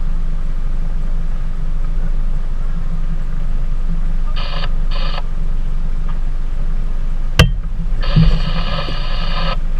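A boat's motor runs with a steady low rumble. Over it come two short electronic beeps, a sharp click, then one longer beep lasting about a second and a half.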